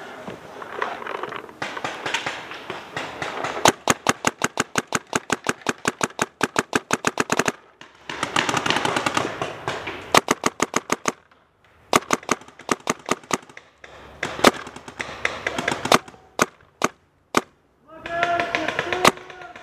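Paintball markers firing: a long rapid string of shots, about nine a second for nearly four seconds, then shorter strings and single shots spread through the rest.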